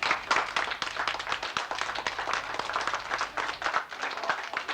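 A group of people clapping in applause, many quick, irregular hand claps that start all at once and keep up at a steady level.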